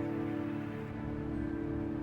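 Instrumental background music with held chords.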